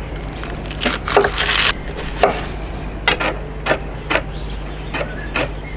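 Kitchen knife dicing a red onion on a wooden cutting board: a run of uneven chops, roughly two a second, with one longer cutting stroke about a second in.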